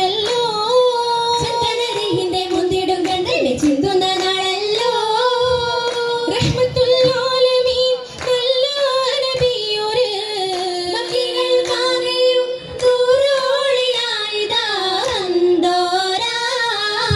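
Oppana song: female voices singing a Mappila melody in long, wavering phrases, with the troupe's hand claps cutting in at intervals.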